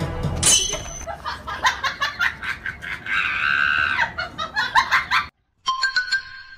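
A person laughing in quick, irregular bursts, rising to a higher squeal about three seconds in, cut off suddenly about five seconds in.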